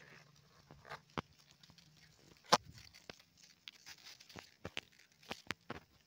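Scattered sharp clicks and taps, the loudest about two and a half seconds in and several more close together near the end, over a faint low hum.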